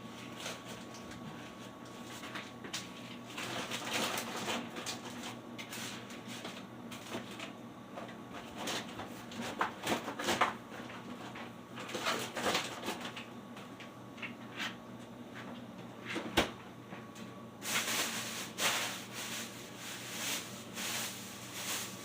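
Household handling noises: scattered knocks, clicks and clatter, like cupboards, drawers and items being moved, over a faint steady hum. The activity is busiest near the end.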